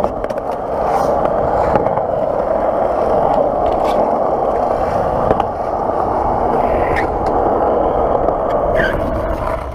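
Skateboard wheels rolling steadily over smooth concrete, a continuous gritty rumble with a few light clicks along the way.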